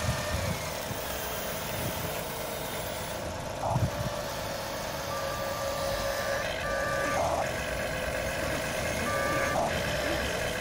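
Huina 1593 RC excavator's electric motors and gears whining steadily as it swings and digs gravel. There is a thump about four seconds in, and short electronic beeps come and go in the second half.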